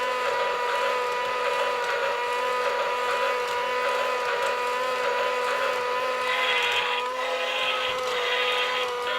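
Battery-powered Thomas Bump n Go Bubble Train toy running: its motor and gears whir with a steady, even whine.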